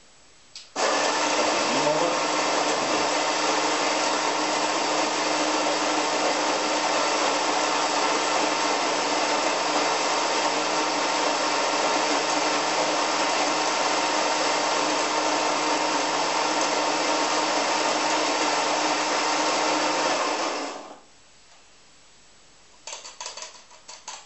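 Demoka Minimoka electric burr coffee grinder grinding coffee beans into a portafilter for an espresso shot. Its motor starts about a second in, runs steadily with a hum for about twenty seconds and cuts off; a few light clicks follow near the end.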